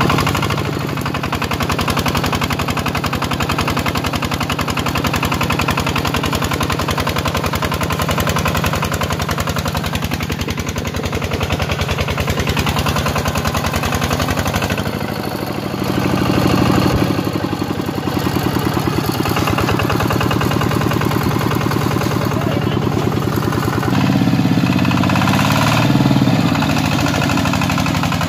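Single-cylinder diesel engine of a two-wheel walking tractor chugging hard under load while dragging a log through mud, a rapid steady putter of exhaust beats. The engine note changes briefly about halfway through and again near the end.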